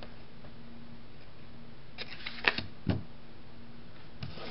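Trading cards being handled and laid down on a tabletop: a few light clicks and taps, the sharpest about two and a half seconds in, over a faint steady hum.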